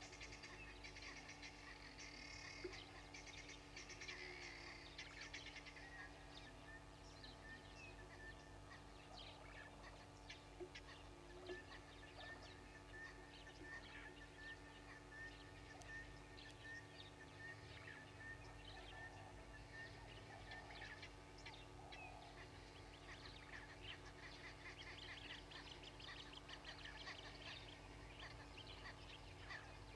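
Faint wild birds calling at a bushveld waterhole: scattered chirps and trills, with a quick run of repeated notes near the end, over a steady low hum.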